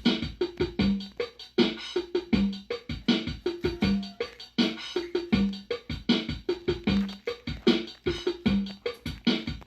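Instrumental electronic music: a steady drum-machine beat with repeating low synth notes, no singing.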